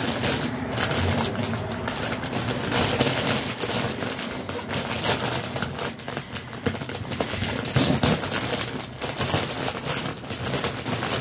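Plastic mailing bag crinkling and rustling as it is handled and opened, a dense, irregular run of crisp crackles and clicks.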